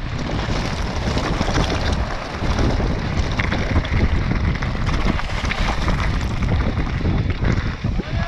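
Wind buffeting the microphone of a mountain bike descending fast, over the continuous crunch and rattle of its tyres on loose gravel and scree.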